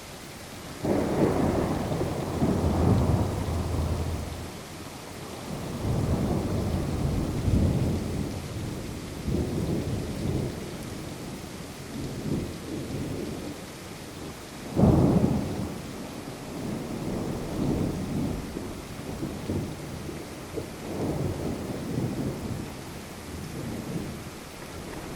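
Thunderstorm: steady rain with rolling thunder. A loud thunderclap breaks in about a second in and rumbles for about three seconds, further rumbles roll on, and a sharper, loud crack comes about halfway through, followed by more rolling rumbles.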